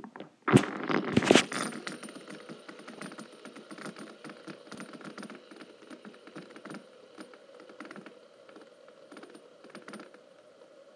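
A few loud sharp clacks about half a second to a second and a half in as a metal fidget spinner is set going on a wooden table, then the spinner spinning: a steady bearing whir with a faint high whine and a rapid light rattle, slowly fading.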